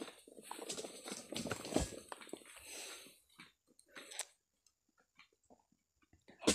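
Faint crunching and rustling of footsteps through undergrowth and dry palm fronds, thinning out about three seconds in to near silence.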